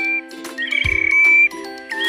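Background music for children: a looped tune with a held high melody line and a low drum thump about every second and a half.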